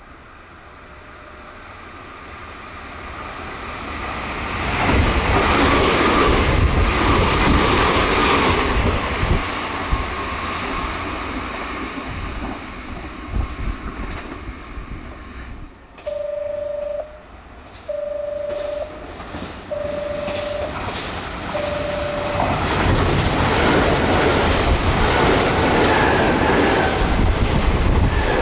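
Nankai 50000 series Rapi:t limited express passing through a station at about 104 km/h: the noise of the train swells, peaks for several seconds and fades. Then four evenly spaced electronic beeps sound, and a second express train, a Southern limited express of 10000 and 7100 series cars, comes through at about 96 km/h near the end.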